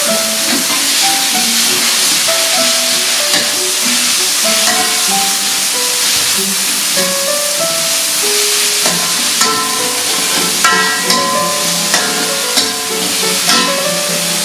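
Sliced pork sizzling as it stir-fries in a wok, a steady hiss. From about nine seconds in, a metal spatula scrapes and knocks against the pan several times. Background music with a plucked or keyboard melody plays throughout.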